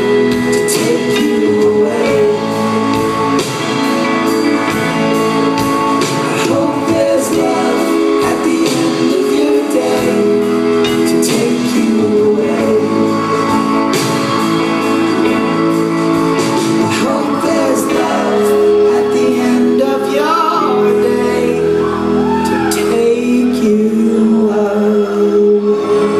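Live rock band playing through a PA in a large hall: guitars, drums and keyboards with singing.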